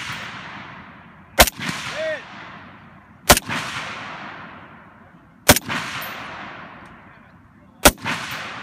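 Four aimed semi-automatic shots from an FAL battle rifle in 7.62×51 NATO, about two seconds apart. Each crack is followed by a long echo that dies away.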